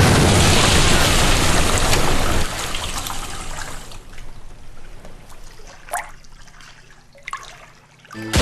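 Cartoon sound effect of water bursting out of plumbing: a sudden loud gushing rush for about two and a half seconds, then weaker, uneven splashing that fades, with two short sharp splats near the end.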